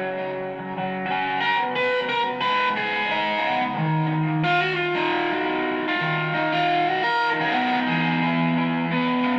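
Electric guitar played through effects pedals and a Fender Frontman Reverb amp: held notes and chords that overlap and ring into one another.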